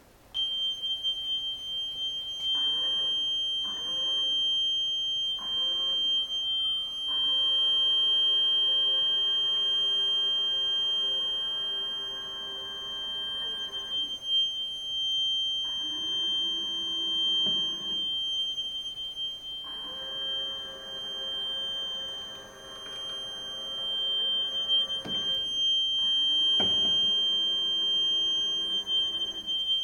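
A steady high-pitched pure tone, played from a smartphone held over the tank as the sound source for the ROV's phase-difference localization, starts just after the beginning and holds unbroken. Under it, a lower electric-motor hum comes and goes in spells of a few seconds as the model ROV's motors run.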